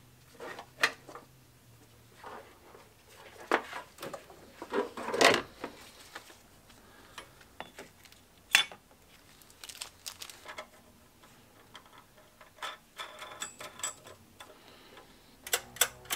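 Irregular light metal clinks, taps and clicks of a battery hold-down bracket and J-bolts being handled and fitted over a car battery, with a couple of louder knocks midway.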